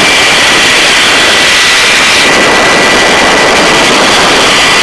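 Search-and-rescue helicopter hovering: loud, steady turbine and rotor noise with a thin, steady high whine, heard through the open cabin door.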